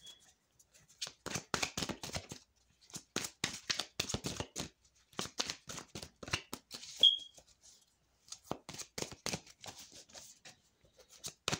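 A Modern Witch Tarot deck being shuffled by hand: quick clusters of card clicks and flutters with short pauses between, and one sharper snap about seven seconds in.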